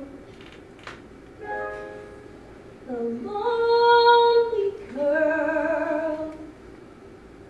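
A woman sings a slow solo ballad in three long held phrases, with near-quiet pauses between them. The middle phrase starts with an upward slide and is the loudest.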